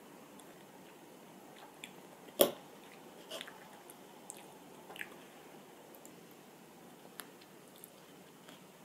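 Close eating sounds of fresh plum slices being bitten and chewed: one loud sharp click about two and a half seconds in, then a few softer crisp bites and small clicks.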